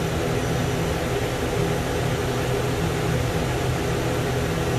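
ATR 72-500's Pratt & Whitney PW127 turboprop engines running, heard inside the cockpit as a steady hiss over an even low drone.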